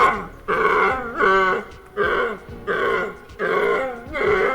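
An animal giving a quick series of short pitched calls, about six in a row, each under a second long.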